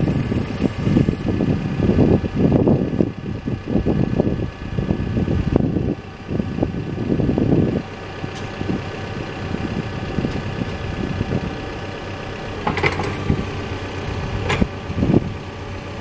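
Caterpillar backhoe's diesel engine running steadily. Uneven rumbling surges come and go over the first half, and a few sharp knocks sound near the end.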